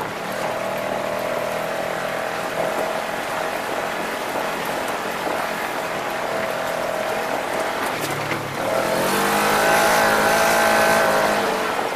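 Off-road vehicle's engine running as it drives along a dirt and cinder track, with road and wind noise. About eight and a half seconds in, the engine gets louder and rises in pitch as it speeds up.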